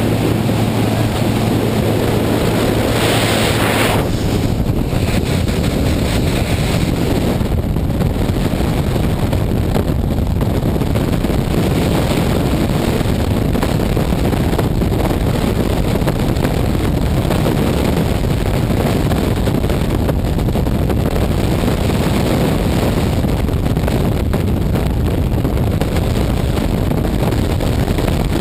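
Light aircraft engine droning steadily with wind rushing past the open door. About four seconds in the engine hum drops away, leaving loud, steady freefall wind buffeting the microphone for the rest of the fall.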